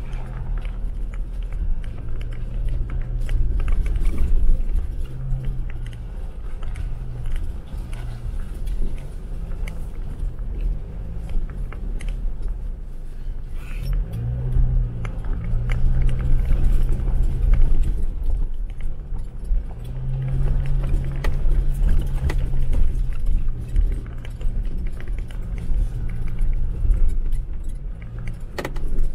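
Jeep Wrangler driving off-road: the engine runs low, its pitch rising and falling with the throttle, while the body gives off frequent rattles and knocks.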